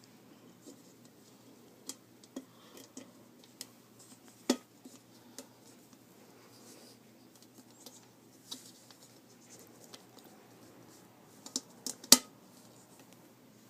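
Filter mesh and parts of a Hamilton Beach electric kettle being handled and fitted: scattered light clicks and taps, with a sharper click about four and a half seconds in and two more near the end, the last the loudest.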